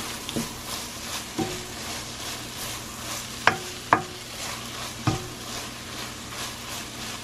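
Scrambled eggs sizzling in a frying pan while a wooden spoon stirs them, knocking and scraping against the pan several times; the loudest knocks come about three and a half and four seconds in.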